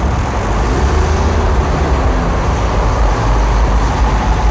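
Car engine running with road noise, heard from inside the cabin as a steady low rumble.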